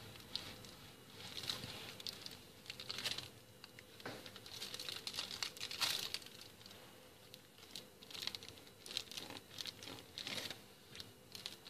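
Faint, intermittent crinkling of a plastic piping bag squeezed in the hand while piping melted white chocolate in thin zigzags, in soft bursts a second or two apart.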